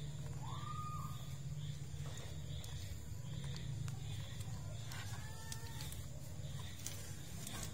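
Newborn kitten giving two short, thin mews, the first rising in pitch then holding, the second about five seconds in, over a steady low hum.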